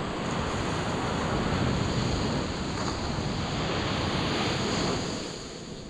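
Ocean surf washing onto the beach, a steady rushing mixed with wind buffeting the microphone; it eases a little near the end.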